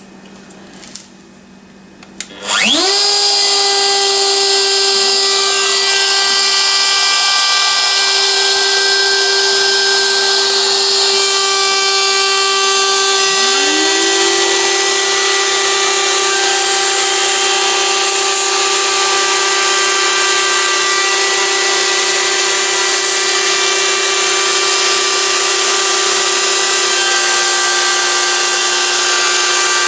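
Carbide compact router spindle on a Shapeoko CNC machine spinning up about two seconds in to a steady high whine, then milling a black plastic sheet. About 13 seconds in a vacuum cleaner starts, its motor rising to a steady whine alongside the spindle.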